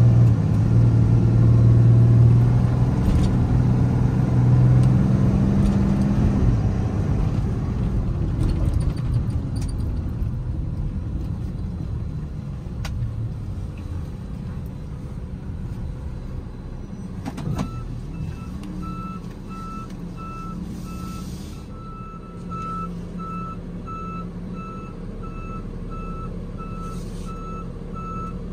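2016 Ram 5500's 6.7-litre Cummins turbo-diesel, heard from inside the cab, running loud under way and then quieter as the truck slows. About two-thirds of the way through, the truck is put in reverse and a backup warning beeper starts beeping steadily.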